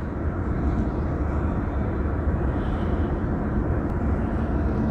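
Steady road and engine noise inside a car cruising at about 60 km/h, with a low rumble and a faint engine hum.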